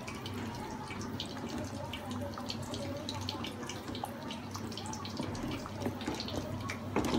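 Beef and potato curry simmering on low heat in an open pot, bubbling with many small irregular pops: the last stage of cooking, letting the oil rise to the surface. A wooden spatula knocks in the pot near the end.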